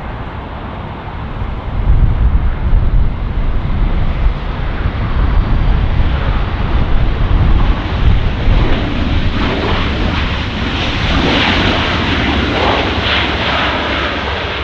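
Jet airliner passing close by. A deep engine rumble swells about a second and a half in, and a loud roar builds to its peak near the end before easing off.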